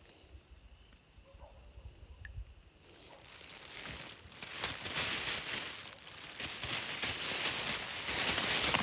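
Insects trilling steadily in the background. From about three seconds in, a loud rustling hiss builds up and covers them.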